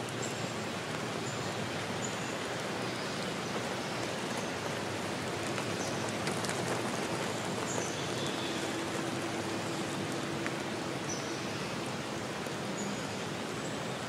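Steady rushing of water in a forest nature soundtrack, an even hiss, with faint short high bird chirps now and then.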